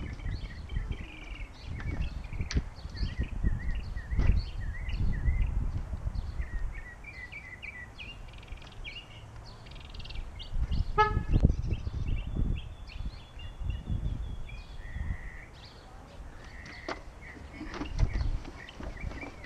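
Outdoor parking-lot sound: birds chirping through a low rumble, with scattered knocks as parts are handled in a pickup bed, and a short horn toot about 11 seconds in.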